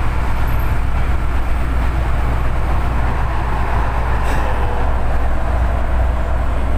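Steady low rumble of a light-rail train heard from inside the carriage.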